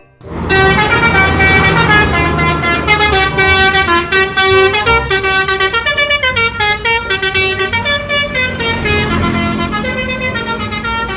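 Basuri telolet bus horn, a multi-tone musical air horn, playing a quick melody of stepping notes with several tones sounding together.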